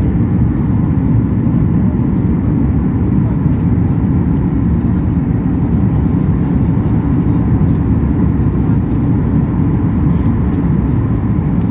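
Airliner cabin noise in flight on descent: a steady low roar of the engines and rushing air heard from inside the cabin.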